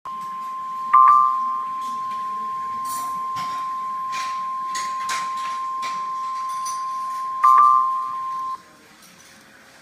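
NOAA Weather Radio 1050 Hz warning alarm tone, one long steady tone that cuts off after about eight and a half seconds, the signal that a warning such as a tornado warning is about to be read. Two brief louder beeps sound over it, about a second in and near the end, and a few faint crackles come through.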